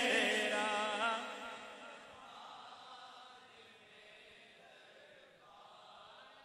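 A man's voice chanting an unaccompanied naat through a microphone, a held, wavering note that dies away over the first two seconds. Near silence follows.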